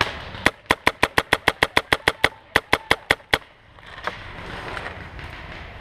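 Paintball marker firing a rapid string of about eighteen sharp shots, roughly seven a second, with a brief break about two and a half seconds in; afterwards only low rustling.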